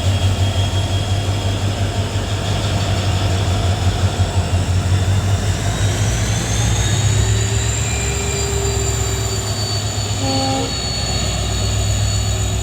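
Twin WDP4D diesel-electric locomotives, with EMD 710 two-stroke V16 engines, humming loudly and steadily as they pull the train away. A high whine rises about halfway through. A brief horn-like tone sounds about ten seconds in.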